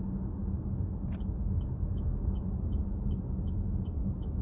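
Steady low road and engine rumble inside a moving Chevrolet Trax's cabin; about a second in a click, then the turn-signal indicator starts ticking evenly, a little over two ticks a second.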